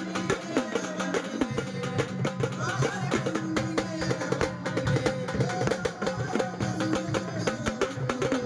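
Folk music played by a band: fast, dense drum and percussion strokes under a bending melody line.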